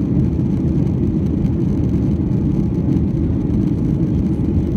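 Steady low cabin rumble of a Boeing 737-900 in flight: the CFM56-7B engines and the airflow over the fuselage, heard from a window seat.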